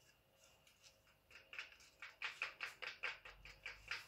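Wet slime mixture of glue, peel-off mask, paint and glitter being stirred in a plastic bowl: quick, even stirring strokes, about five a second. They start faintly a little over a second in and grow louder from about two seconds in.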